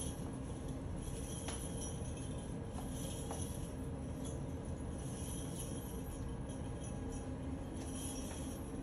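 Small metal coins on a dancer's hip belt jingling softly as she sways, over a steady low hum, with a few faint taps.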